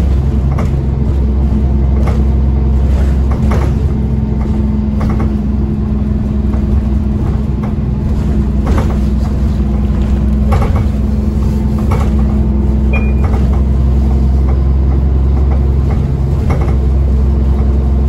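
Inside an Orion city bus under way: the engine and drivetrain drone steadily low, with scattered knocks and rattles every second or few. The knocking comes from the right side of the bus, which the rider thinks is under a seat or at a wheel and puts down to old age.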